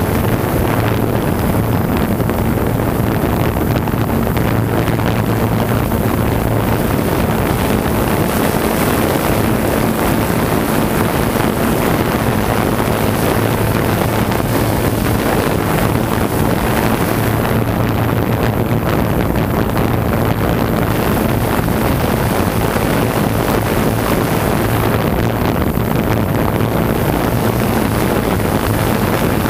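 Quadcopter drone's motors and propellers running steadily, a loud hum with wind rushing over the drone's onboard microphone. The low hum weakens for a stretch in the middle.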